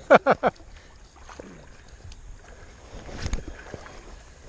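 Creek water being stirred and splashing around someone wading, with a brief louder splash about three seconds in. A few quick vocal sounds come right at the start.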